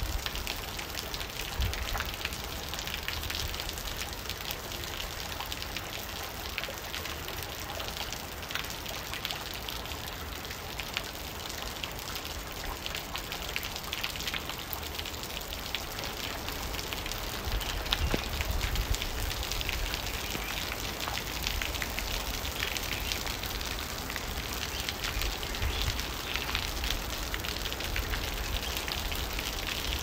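Heavy rain falling steadily, a dense patter of drops splashing on a wet surface with sharp individual drop hits, over a low rumble.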